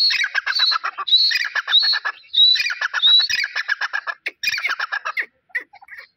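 Grey francolin calling: repeated phrases, each a high note followed by a fast run of shorter notes, in several bouts, thinning to a few scattered notes near the end.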